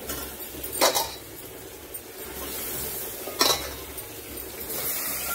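Stainless steel cookware clinking twice, about a second in and again past the middle, over a faint sizzle of vegetables cooking in a pressure cooker.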